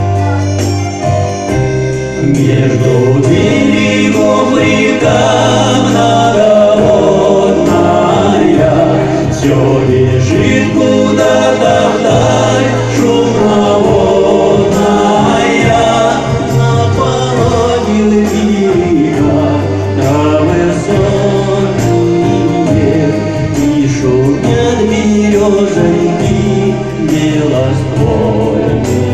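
Song music with singing: choir-like voices held over a steady band backing with a bass line.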